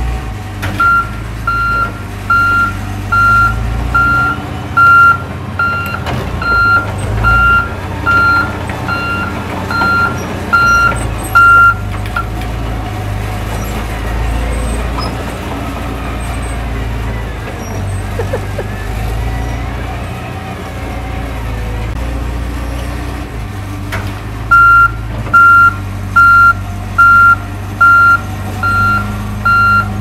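Crawler bulldozer's diesel engine running under a steady rumble, with its reversing alarm beeping loudly at about one beep a second as it backs up, for the first dozen seconds and again from about 24 seconds in.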